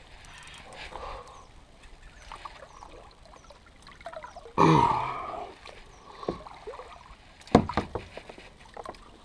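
Water trickling and sloshing around a kayak as the paddle is worked during the fight with a hooked fish. About halfway there is a short loud vocal grunt, and a few sharp knocks come later, near the end.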